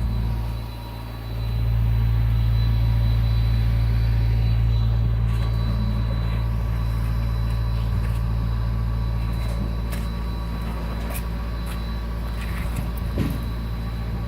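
A machine engine running steadily with a low drone, dipping briefly about a second in, while scattered knocks and clinks of concrete being broken out sound over it.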